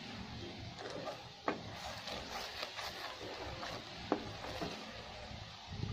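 A spoon stirring and scraping coconut milk and condensed milk as it simmers and thickens in a nonstick pan, with a few sharp clicks of the spoon against the pan, about a second and a half in and again about four seconds in.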